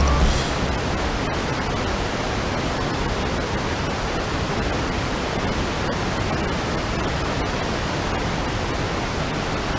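Steady rushing of water flowing over a river weir, an even noise that does not change.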